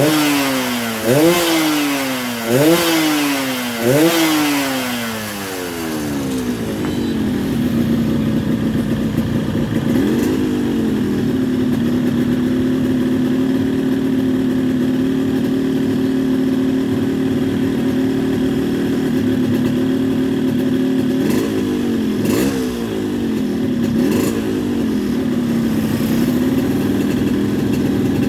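Yamaha RX-King's single-cylinder two-stroke engine is blipped four times in quick succession, each rev rising sharply and falling away, then settles to a steady idle, with a few more short blips later on. It is tuned for the deep 'ngorok' (snoring) two-stroke note.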